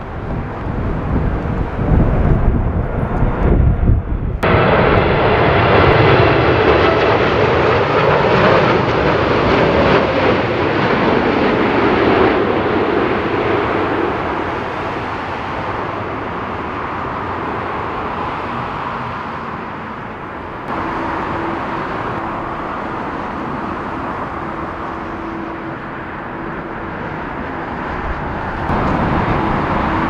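Boeing 747 freighter jet engines during crosswind landings. First a low wind rumble on the microphone under an approaching jet. About four seconds in, after an abrupt cut, a loud jet roar slowly fades over the next ten seconds; a second cut about two-thirds through brings a quieter, steady jet sound with a constant hum that swells again near the end.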